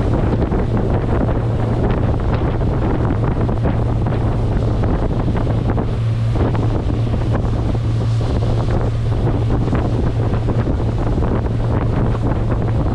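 Pontoon boat's outboard motor running steadily at towing speed, a constant low drone, under the rush of the churning wake and wind buffeting the microphone.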